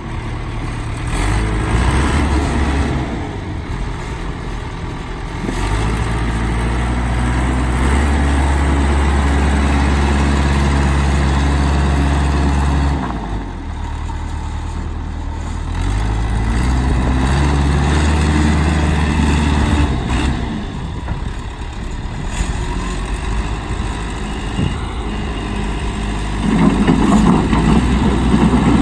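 John Deere 210C backhoe's diesel engine running, its speed and load rising and falling several times, and loudest and roughest near the end.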